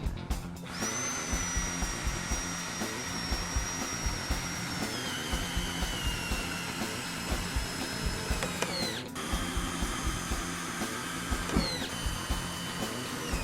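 Power drill driving a screw: the motor whine starts about a second in, drops in pitch partway through as it slows under load, and stops after about eight seconds. A second run starts near the end.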